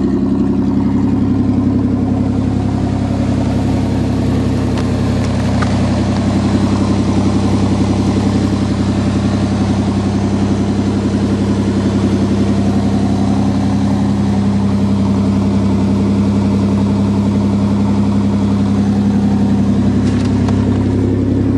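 Ford pickup's 2.9-litre V6 idling steadily, just after a cold start.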